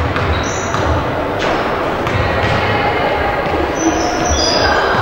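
Basketball bouncing on a hardwood gym floor with repeated low thuds, and short high sneaker squeaks as players cut, all echoing in a large hall.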